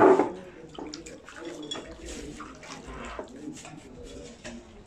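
Water sloshing and splashing as hands wash pieces of tilapia in a large metal basin of hot water, with small drips and clinks. A brief loud burst comes right at the start.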